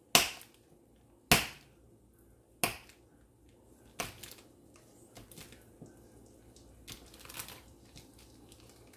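A block of Asiago cheese being sliced: four sharp knocks of the blade going through onto the board, about a second and a third apart, then softer taps and a brief rustle.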